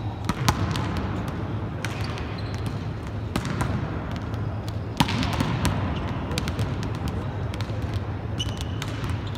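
Volleyballs being spiked during warm-up: irregular sharp smacks of hands striking balls and balls hitting the court, ringing in a large hall, the loudest about half a second and five seconds in, over a steady low hum and scattered voices.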